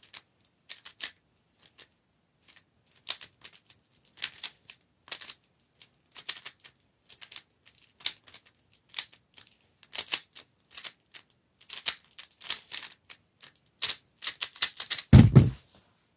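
Quick clacking of a stickerless 3x3 speed cube's layers being turned during a timed solve, in uneven flurries of clicks with short pauses between. Near the end comes a loud dull thump as the hands come down on the Speed Stacks timer to stop it.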